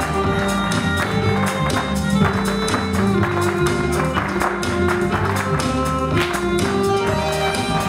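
Irish dance music playing, with the sharp clicks of step dancers' shoes striking the stage floor in time with it.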